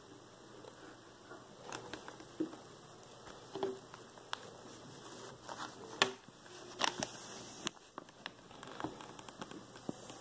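Hobby knife blade scratching and cutting paper against a ruler on a cutting mat, with irregular small scratches, clicks and taps as the paper and ruler are handled; the sharpest click comes about six seconds in.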